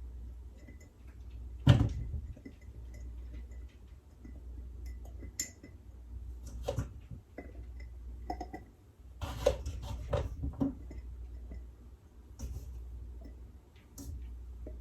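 Small whole potatoes being rearranged in glass canning jars: scattered knocks and clinks of potatoes against glass and jars on the counter, the loudest knock about two seconds in, over a low steady hum.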